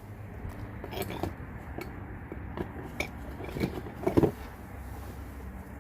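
Scattered metallic clinks and knocks of brake pads and caliper hardware being handled and fitted, loudest in a short cluster about four seconds in.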